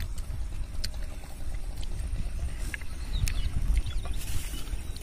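Wind rumbling on the microphone, with a few sharp, short cracks of crisp puris being broken open by hand.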